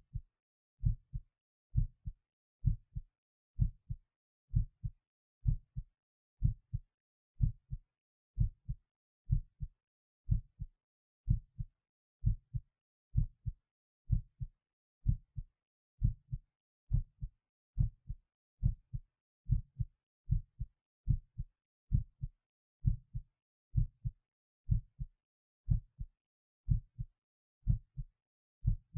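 A person's heartbeat heard close up, each beat a double thump (lub-dub), steady at a little over one beat a second, with silence between beats.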